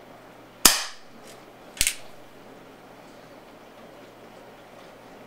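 A shot from a Colt Single Action Army Peacemaker 4.5mm CO2 BB revolver: one sharp crack with a brief ringing tail less than a second in, then a quieter sharp snap about a second later.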